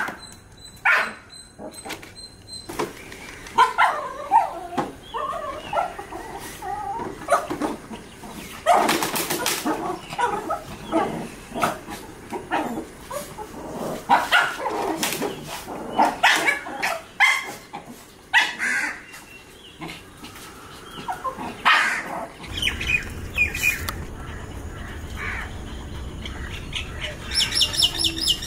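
Shih Tzu puppies about 40 days old, play-fighting: short, high yips and squeals in uneven bursts. Near the end, a quick run of high chirps.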